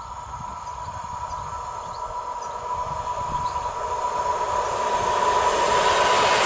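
EN57 electric multiple unit approaching and running past, growing steadily louder. A steady high tone runs over the rising rumble of its wheels on the rails.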